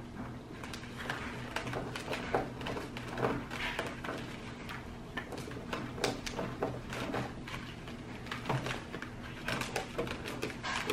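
A spoon stirring and scraping a thick, Oobleck-like slime mix in a bowl, with hands squishing through it: many small irregular clicks and scrapes over a faint steady hum.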